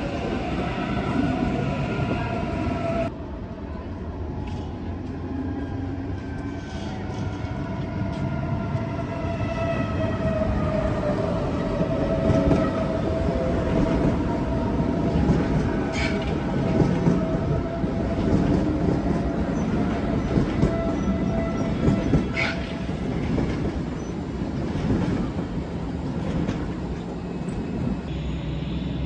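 German class 424/425/426 electric multiple unit running, its rolling noise overlaid by several whining tones that slowly slide in pitch. Two sharp clicks come in the middle.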